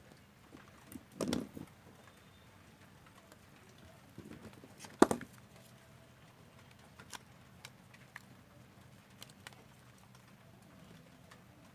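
Scattered light clicks and taps from handling a smartphone and small repair tools. There is a short knock about a second in, a sharp click about five seconds in, and faint ticks after it.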